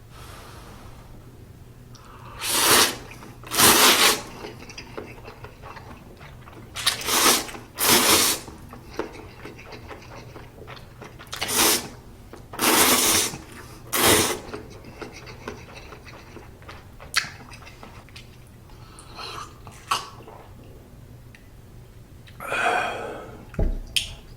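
Close-miked slurping of Buldak spicy stir-fried instant noodles: about seven loud slurps in the first fifteen seconds, then softer, shorter slurps and chewing.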